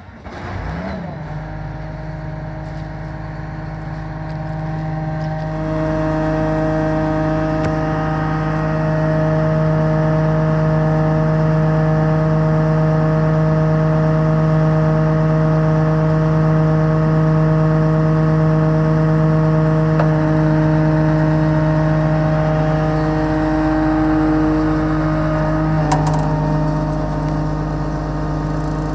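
Case IH Axial-Flow combine running, a steady engine and machinery hum with an even whine above it. The sound rises in the first second and grows louder and fuller about five seconds in. Around 26 seconds there is a short click and the pitch shifts slightly.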